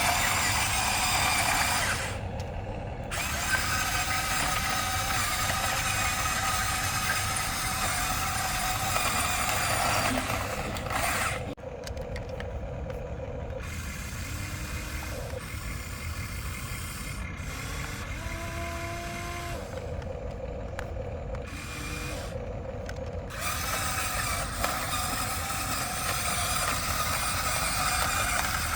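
Electric motors of a Huina remote-control excavator whining with a high-pitched hum of several tones, stopping and starting several times as the controls are worked.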